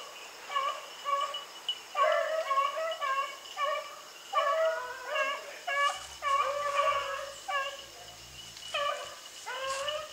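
A pack of beagles baying on the run, several voices overlapping in repeated, bending bawls, a few calls a second throughout.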